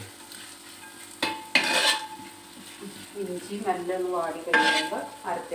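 A utensil scraping and clanking against a wide metal uruli as sliced onions and green chillies are stirred in it, over a light sizzle of frying. There are three sharp metallic clanks with a short ring: one about a second in, one just before two seconds, and one near the end.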